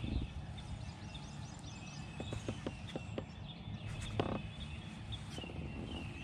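Outdoor lakeside ambience: small animal calls chirping and trilling, high-pitched and repeated, over a steady low rumble, with a few light clicks and one brief louder knock about two-thirds of the way through.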